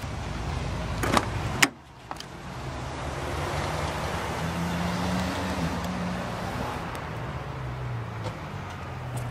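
The rear door of a 1990 Toyota Camry sedan being opened: a click at about one second and a sharper latch clack just after. Then steady outdoor traffic noise with a low, wavering engine hum.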